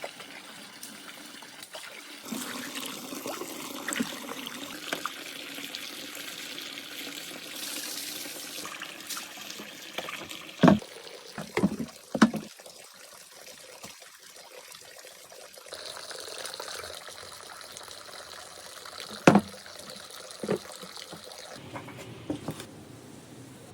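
Running water, with a handful of sharp knocks, mostly in two clusters around the middle and later on.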